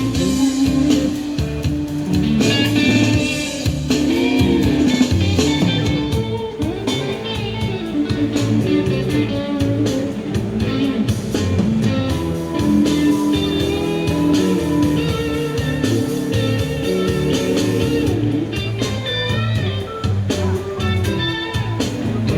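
Guitar-led music played back through a pair of KEF LSX wireless active speakers.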